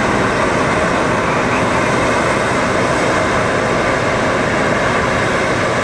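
Steady outdoor background noise: an even, unbroken roar with no distinct events.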